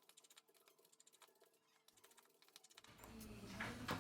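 Faint, quick small clicks and taps of a precision screwdriver working the screws out of a phone's middle frame. In the last second a low steady hum comes up, with a couple of louder clicks.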